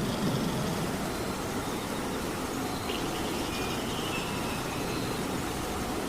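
Steady rain hiss. A low rumbling swell comes at the very start, and a faint high streak falls in pitch around the middle.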